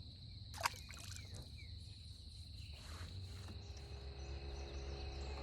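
Faint outdoor ambience: a steady high-pitched insect drone over a low rumble, with a single sharp click about half a second in.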